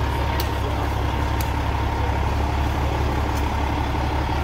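Large semi truck's engine running in a steady low rumble, with a faint steady whine above it and a few light clicks.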